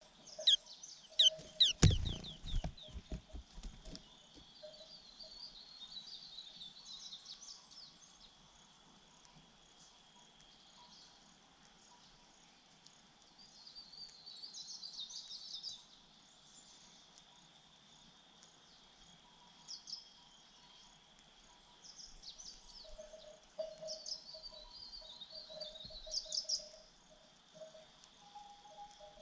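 White-eye chicks' high-pitched chirping in short rapid bursts, several times, over a faint steady high whine. A run of sharp knocks about two seconds in is the loudest sound.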